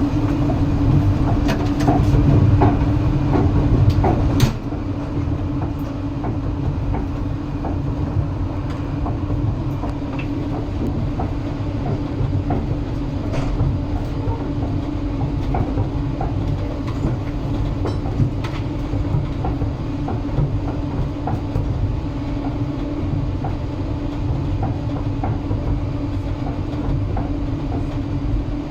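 Moving train: its wheels on the rails give a steady low rumble and hum, with regular clickety-clack as they pass over rail joints. Louder for the first few seconds, then a little quieter and even.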